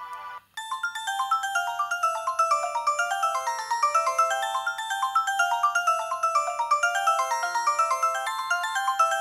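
Samsung SGH-Z130 ringtone playing: a quick polyphonic tune of many short notes, several sounding at once. A previous held tone cuts off about half a second in, just before the tune starts.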